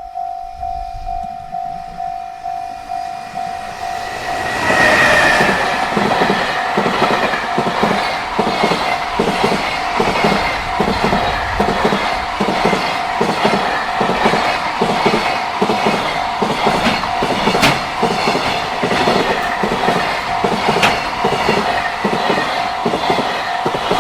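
Level-crossing warning bell ringing about twice a second. About four and a half seconds in, a JR Freight train arrives and rushes past, its wagon wheels clattering in a steady rhythm over the rail joints while the crossing bell keeps ringing underneath.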